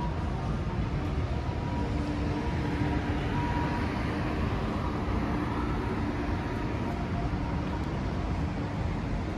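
City street traffic: a steady rumble of passing vehicles, swelling a little around the middle as one goes by.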